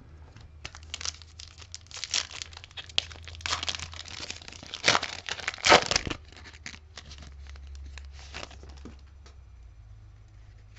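Foil trading-card pack wrapper being torn open and crinkled by hand, a dense run of crackles that is loudest about five to six seconds in and dies away after about nine seconds.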